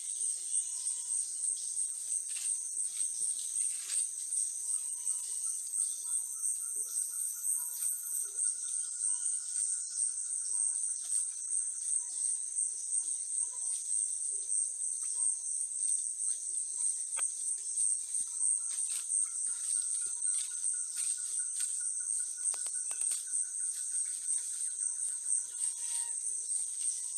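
Steady high-pitched chorus of insects with a fast pulsing throb. A faint, long, even tone comes in twice, each lasting several seconds.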